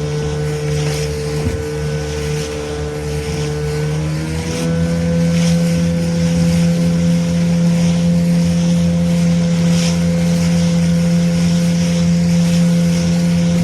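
Small motorboat's engine running steadily under way, with wind and water noise. About four seconds in the engine speeds up a little and runs louder.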